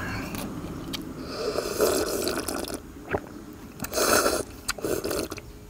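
A person eating cold noodles: several slurps, with chewing between them.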